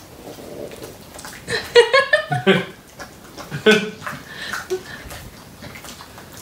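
Short wordless bursts of a person's voice, a chopped run about a second and a half in and another shorter one near the middle, while an English bulldog takes treat crumbs from a hand and eats them.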